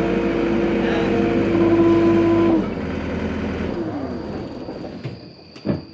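Farm machinery running steadily with a droning engine note, then dropping off about two and a half seconds in and winding down with a falling pitch. It fades low, and a single sharp click comes near the end.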